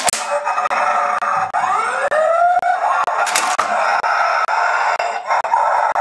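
Electronic sound effects from a transforming toy fire truck's small speaker: a harsh, distorted noise with a siren-like wail that rises and falls about two seconds in. Sharp clicks at the start and about three and a half seconds in.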